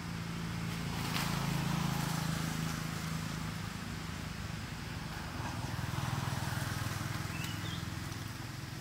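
Low, steady engine drone that swells twice, about a second in and again around six seconds in.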